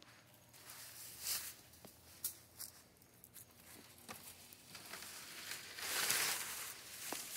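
Leaves and palm fronds rustling and swishing as they brush past, in uneven bursts and loudest about six seconds in, with a couple of sharp clicks near the start.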